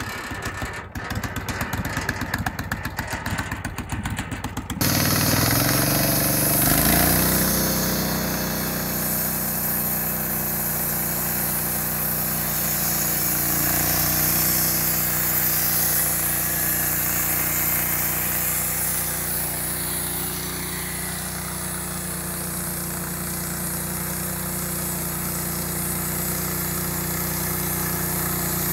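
Petrol engine of a portable bandsaw sawmill putters at low speed, then revs up sharply about five seconds in and runs steadily as the blade cuts along a board.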